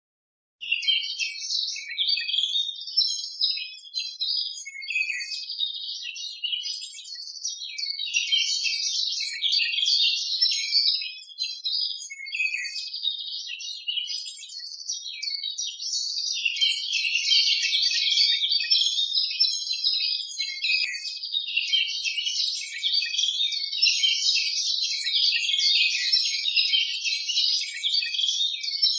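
Birds chirping and singing in a dense, continuous chorus of short high calls, starting about half a second in after a brief silence.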